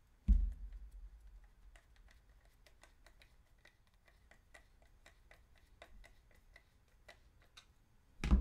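A hand screwdriver drives a metal machine screw into a 3D-printed plastic part, giving a run of faint, irregular ticking clicks after a single thump at the start. A louder knock comes near the end.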